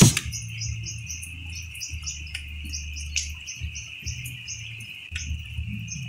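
Insects chirping: a steady high trill with a rapid repeating chirp above it, and a couple of faint clicks near the middle.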